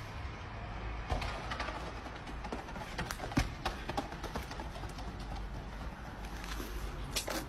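Footsteps of someone running on a street, irregular sharp footfalls over a steady low rumble of wind and handling noise on a phone microphone carried at a run.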